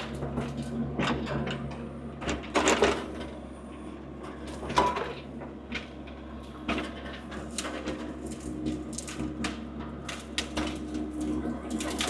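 Compact machine's engine running steadily at low speed, with frequent clunks, knocks and rattles; the loudest cluster of knocks comes about two and a half seconds in.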